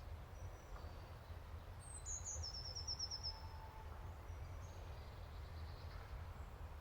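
Faint nature ambience with a low steady rumble. About two seconds in, a songbird gives a short high call followed by a quick trill of about eight high notes.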